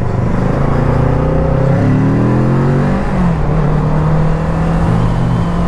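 Kawasaki Z650 parallel-twin engine accelerating hard, its pitch rising for about three seconds, then dropping at an upshift and running steadily.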